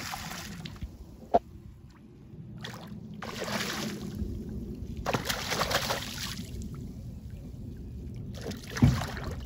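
Lake water splashing and sloshing in several separate bursts as a hooked fish thrashes at the surface while being reeled in, over a low steady rumble. There is a sharp knock about a second and a half in and a louder thump near the end.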